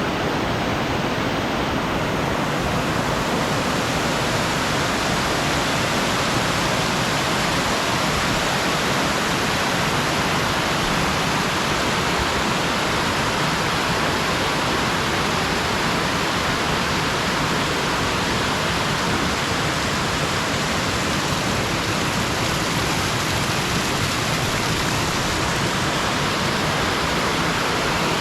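A river swollen with floodwater rushing fast over rocks above a waterfall: a steady, loud, unbroken rush of water.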